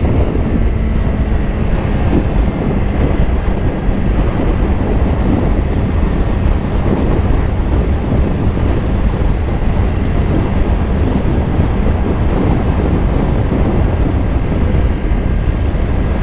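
Steady wind noise buffeting the microphone while riding, with a 2024 Kawasaki Ninja 500's parallel-twin engine running underneath at an even cruise.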